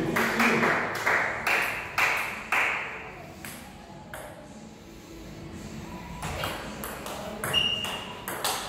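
Table tennis ball clicking off bats and table: a run of strikes about twice a second over the first few seconds, a lull around the middle, then a rally starting about six seconds in.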